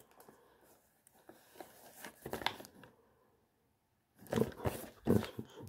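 Cellophane wrap on a perfume box crinkling as the box is handled and turned in the hand, in irregular bursts of rustling, the loudest near the end.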